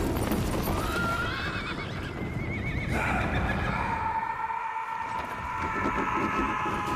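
Film-soundtrack horses whinnying over the clatter of hooves and a racing carriage, with a wavering, rising whinny about a second in. A long, high held tone joins from about three seconds in.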